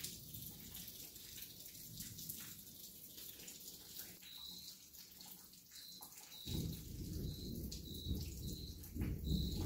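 Steady rain hissing during a night thunderstorm, with a low rumble of thunder that fades and then swells again suddenly about two-thirds of the way through. From about halfway a small animal gives a short high chirp, repeating roughly once or twice a second.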